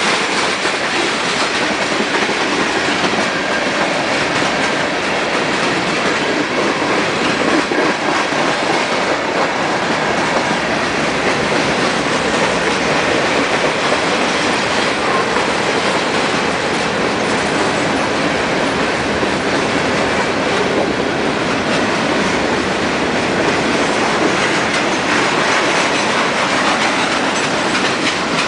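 A freight train's boxcars, covered hoppers and tank cars rolling past at close range: a steady, unbroken noise of steel wheels running on the rails.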